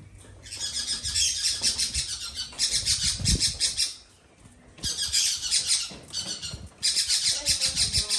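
A bird squawking in three long runs of rapid, harsh, high-pitched pulses, each lasting one to three seconds, with short breaks between them.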